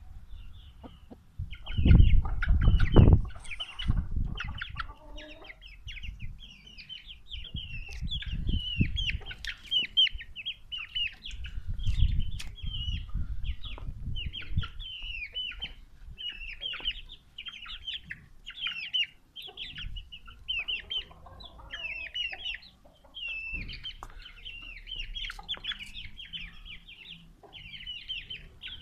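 Aseel chicks peeping constantly in a rapid run of high chirps, with a hen clucking low now and then. Low rumbling comes and goes, loudest two to three seconds in.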